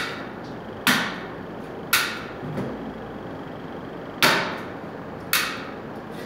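A series of sharp, hard knocks, about one a second with a longer gap in the middle, each with a brief ringing tail, over a steady background hum.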